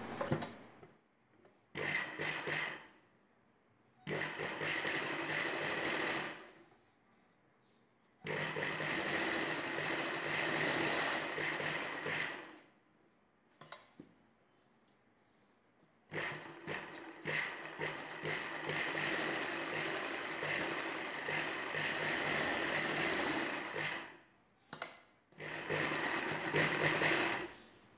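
Ralson sewing machine running in short stop-start runs as a seam is stitched, five runs of a few seconds each with brief pauses between, the longest about eight seconds.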